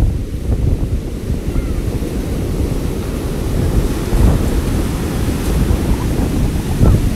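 Heavy hurricane-driven surf crashing and washing up the sand, with strong wind buffeting the microphone in a continuous low roar.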